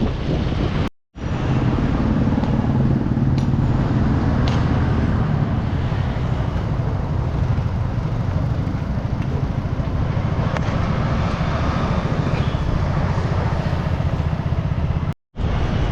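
Steady low rumble of road-vehicle noise, broken twice by a brief drop to silence, about a second in and near the end.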